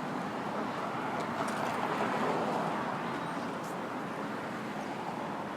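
City street traffic noise: a steady rush of passing vehicles that swells about two seconds in and then eases. A few faint, short high-pitched sounds come over the top.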